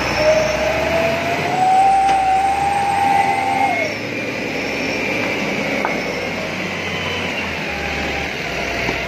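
Loaded Mitsubishi Colt Diesel (Canter) dump truck driving past on a dirt track, its diesel engine running under load. A whine rises in pitch over the first few seconds and drops away about four seconds in.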